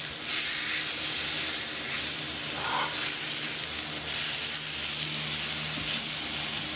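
Mahi mahi fillets frying in olive oil in a cast iron skillet on medium-high heat: a steady sizzle right after the fish is turned over.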